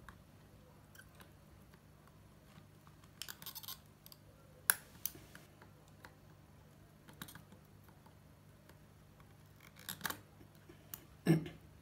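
Faint, scattered clicks and scratches of a soldering iron tip and metal tools on a mechanical keyboard's circuit board while an LED's solder joint is heated for desoldering, over a low steady hum.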